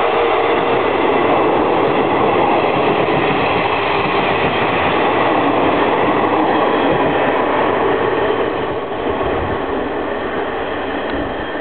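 Electric train passing close by: a maroon locomotive car hauling a flat wagon and an orange Yoro Railway 600 series car, wheels rolling on the rails. The sound holds steady and loud, then drops about eight and a half seconds in as the train moves off.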